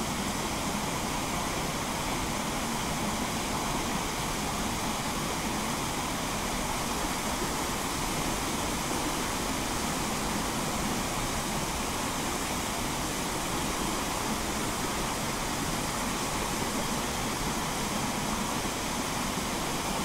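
Mountain stream rushing over rocks below a small waterfall: a steady, even rush of water that does not change.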